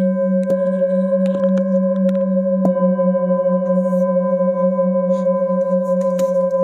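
Singing bowls struck with a padded mallet, their steady tones overlapping and ringing on. Fresh strikes come about half a second in and again near the three-second mark, and the deepest tone wavers slowly.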